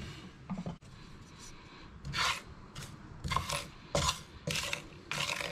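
Wooden spoon stirring and scraping whole dry spices (seeds, cardamom pods, cinnamon quill) around a dry nonstick frying pan as they dry-roast. A series of short rasping strokes, about two a second, starting about two seconds in.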